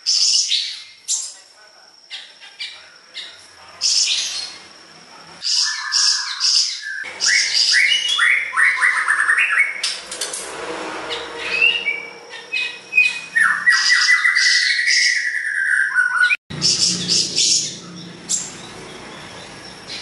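Caged siri-siri besar songbird singing busily: short, sharp high chirps, broken by fast trilled phrases in the middle and again near the end. A thin, steady high tone runs underneath.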